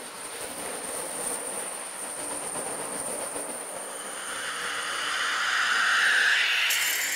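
A bundle of spiky metal pieces rubbed and scraped over a drum head, a continuous rough scratching hiss with a faint steady high ringing above it. About four seconds in, a louder hiss swells up, peaks, and eases off near the end.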